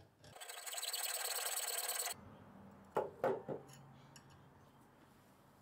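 Hacksaw cutting through a small zinc cupboard-latch bracket held in a vise: a rasping saw sound for about two seconds that stops suddenly. A few light knocks follow about a second later.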